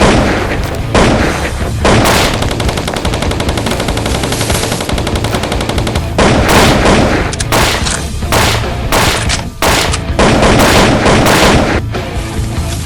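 Automatic gunfire sound effects: a long rapid rattling burst from about two to six seconds in, then repeated shorter bursts of shots, over a steady low rumble.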